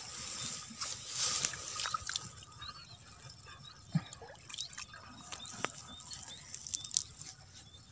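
Muddy water sloshing and squelching as a hand works inside a flooded eel burrow in a rice-field bank, trying to pull out an eel that is caught but won't come free. It is louder in the first couple of seconds, then quieter, with a few sharp drips or clicks.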